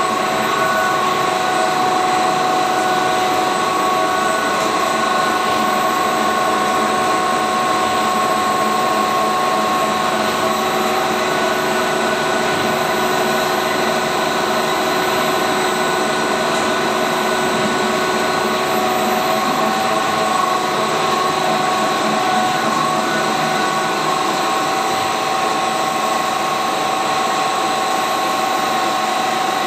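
Fish feed extruder production line running: electric motors and machinery giving a loud, steady mechanical noise with a whine of several steady pitches.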